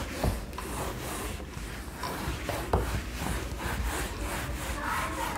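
A duster wiping marker writing off a whiteboard in repeated back-and-forth rubbing strokes, with a couple of light knocks of the duster against the board.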